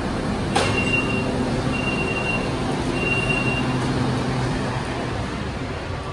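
BTS Skytrain EMU-B3 train and platform screen doors opening at a station: a clunk about half a second in, then three long high warning beeps, over the steady hum of the standing train.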